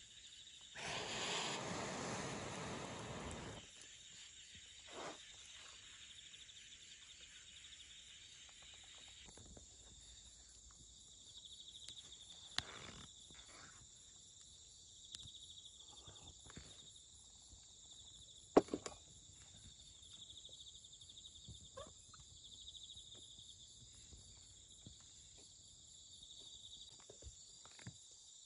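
Crickets chirping steadily in grass, with scattered clicks and knocks from sticks of wood against a small folding metal wood stove; a sharp knock about two-thirds of the way through is the loudest. Early on there are a few seconds of rushing noise.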